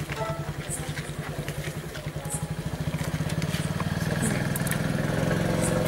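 A small engine idling steadily, its low pulsing hum growing louder about three seconds in.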